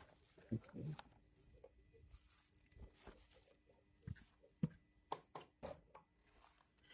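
Faint handling noises of small cardboard boxes being moved and set down on a desk mat: a few soft knocks and rustles, a cluster near the start and several more in the second half.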